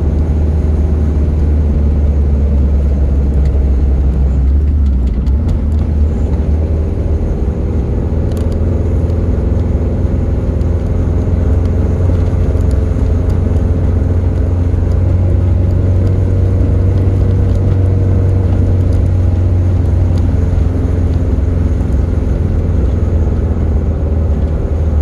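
Car driving steadily along a paved road, heard from inside the cabin: a constant low rumble of engine and tyre noise with a faint hum above it.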